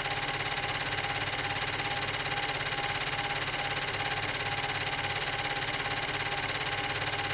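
Steady mechanical whirring with a regular pulsing beat about two to three times a second and a fast flutter.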